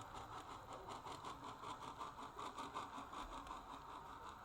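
Model New York Central steam locomotive running on the layout track, a steady mechanical sound with a quick even pulse about six times a second.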